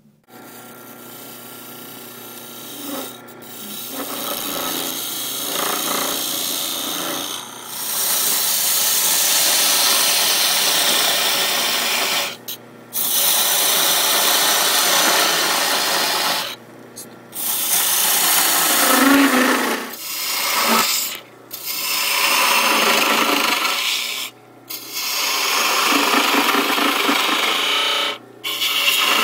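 Wood lathe spinning a wooden pepper-mill head while a hand-held turning tool cuts into it: a loud, steady scraping hiss over the lathe's low hum, lighter at first. The cutting stops briefly about five times as the tool is lifted off.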